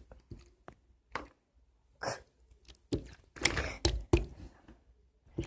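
Slime being stirred in a container: irregular taps and knocks against the container with a few longer scraping, squelching stretches.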